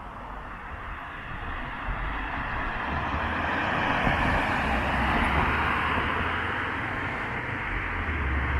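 A car passing on the road, its tyre and engine noise swelling to its loudest about four seconds in and then easing, with another vehicle approaching near the end.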